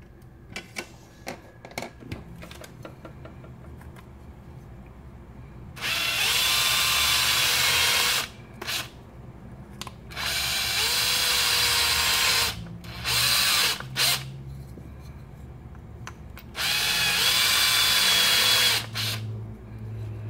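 Power drill boring holes through a carbon fiber sheet: three runs of about two seconds each with short blips between, each starting with a rising whine as the motor spins up. A few light clicks and taps come before the first run.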